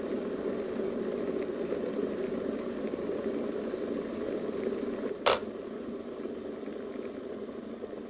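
Electric 2-litre kitchen kettle boiling, a steady low bubbling rumble. A single sharp click comes about five seconds in, after which the boiling slowly eases.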